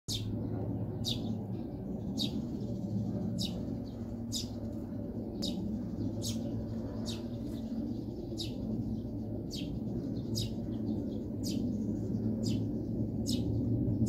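Eurasian tree sparrow chirping: a short, high, falling chirp repeated evenly about once a second, over a steady low background rumble.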